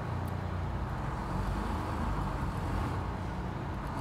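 A 1959 GM 4104 bus's Detroit Diesel 6-71 two-stroke diesel engine running steadily, heard from outside the bus.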